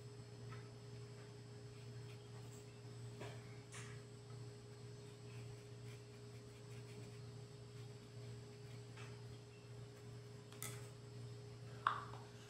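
Steady low electrical hum with a fainter higher tone, a few faint clicks, and one short knock near the end as a small plastic paint pot is handled on the countertop.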